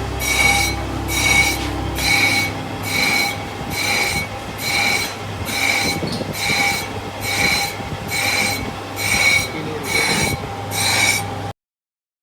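Brake drum turning on a resurfacing lathe, a high metallic squeal pulsing about once a second over the steady hum of the machine. It cuts off suddenly near the end.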